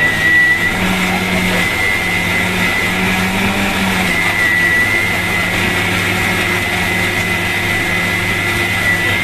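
Electric mixer grinder running steadily with a high whine, its steel jar grinding mint chutney.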